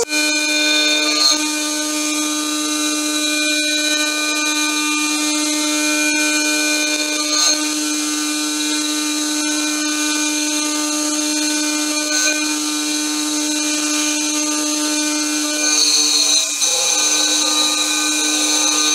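Home-built CNC mill's spindle running with a 4 mm end mill cutting into metal, a steady high whine with a few changes in tone, briefly interrupted about sixteen seconds in.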